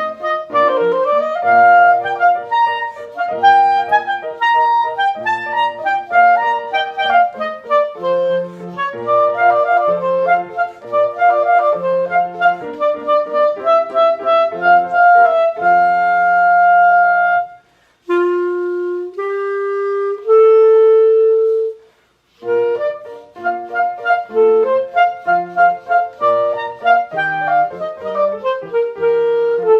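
Clarinet playing quick running passages of short notes. About two-thirds of the way through, it breaks off for three longer held notes climbing in pitch, then returns to the fast runs.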